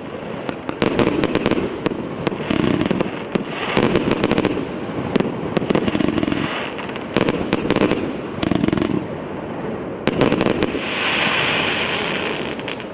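Consumer firework battery (a 120-shot cake) firing shot after shot, about once a second, each launch followed by sharp cracks and bursts. Near the end it gives a longer hissing crackle, then the level falls away.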